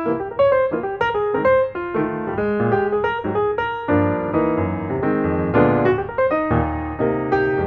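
Background piano music: a melody of separate notes played a few per second over a low bass line.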